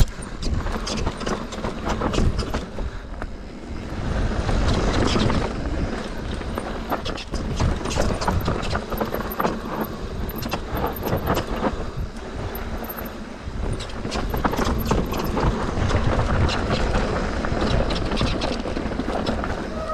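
Mountain bike riding a downhill dirt trail, heard from a GoPro. The tyres rumble over the ground, and the bike clatters with many quick clicks and knocks over the bumps.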